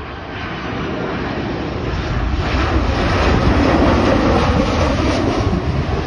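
Boeing 737 jet airliner passing low overhead on final approach, its engine noise a heavy rumble that swells to a peak about halfway through, then eases a little.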